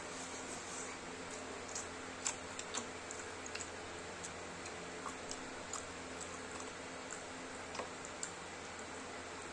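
Eating sounds: irregular small clicks and smacks of chewing and of a hand working food on a plate, over a steady low hum.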